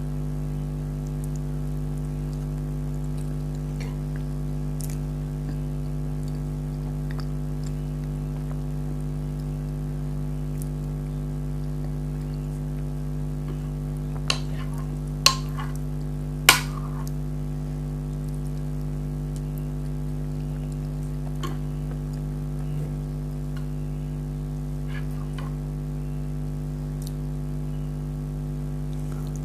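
Steady low hum throughout, with three sharp clicks of a spoon against a dish in quick succession about halfway through and a few fainter ticks.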